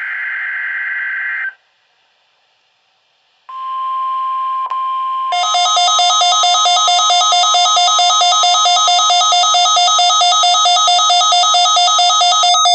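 NOAA Weather Radio test signal. The tail of the digital header's data burst stops about a second and a half in. After a pause, the steady 1050 Hz warning alarm tone starts. About two seconds later a receiver's loud, rapidly pulsing buzzer alarm cuts in, set off by the signal, and runs until it stops suddenly at the end.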